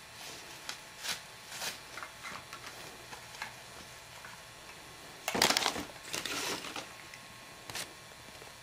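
Clear plastic bag crinkling and rustling as a cat shifts inside it: scattered small crackles, with the loudest rustle about five seconds in and a second one just after.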